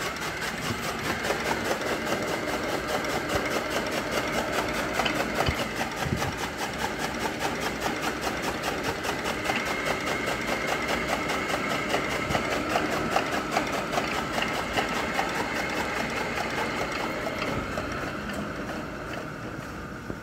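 Motor-driven fodder chaff cutter running steadily with a fast, even chatter, easing off slightly near the end.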